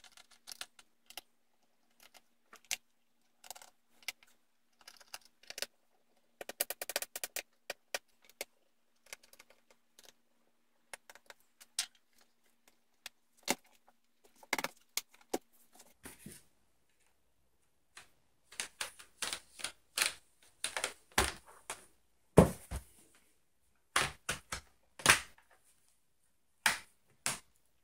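Small screwdriver working the screws on the plastic bottom cover of a Lenovo ThinkPad P50s laptop: light clicks and ticks, with a quick rattle of clicks about seven seconds in. In the second half the cover is worked loose around its edge, and the plastic clips let go with sharper snaps, the loudest near the end.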